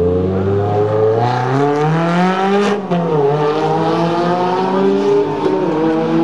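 Ferrari V8 sports car accelerating hard away, its engine note climbing through the gears with upshifts about 3 s and 5.5 s in.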